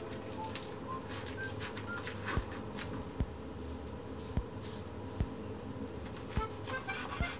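Dry rustling of seaweed-wrapped kimbap rolls being handled and brushed, with scattered light taps on a wooden cutting board, then a knife slicing through a roll near the end.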